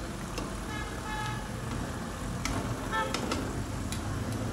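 Road traffic rumbling steadily, with short snatches of distant voices or tones about a second in and again about three seconds in, and a few light clicks.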